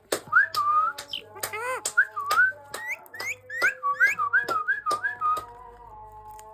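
Pet parrot whistling a rapid run of short swooping notes, each rising or falling in pitch, with sharp clicks between them; the whistling stops about five seconds in.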